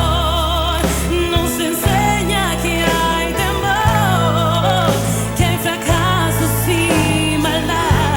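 A woman singing a pop ballad in Spanish over band accompaniment, holding notes with vibrato and sliding through melodic runs over sustained bass and chords.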